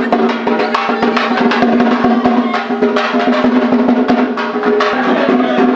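Fast, dense drumming with a steady held note sounding under it.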